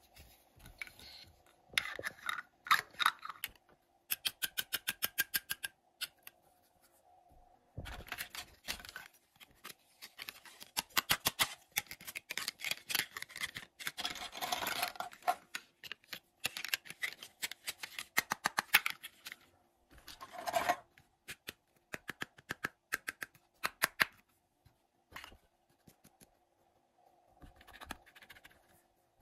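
Hard plastic toy dishes and play food clicking, tapping and scraping against each other as they are picked up and handled, with a quick, even run of clicks about four seconds in.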